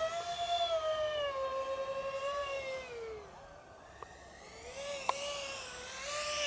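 Electric motor whine of a radio-control Su-35 model jet, its pitch sliding and dropping away as the throttle is cut about three seconds in. A sharp click comes about five seconds in, then the whine rises again and holds.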